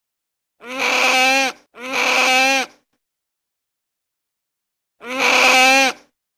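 Sea otter calling: three drawn-out whining cries of about a second each, two back to back, then a third about two seconds later, each wavering and dipping in pitch at its end.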